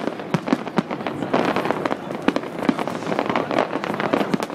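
Aerial fireworks bursting overhead: rapid, irregular bangs and pops over continuous crackling.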